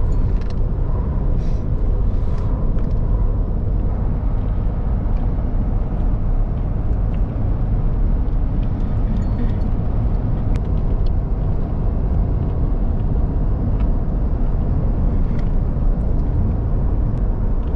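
Steady rumble of road and engine noise from inside a moving truck's cab.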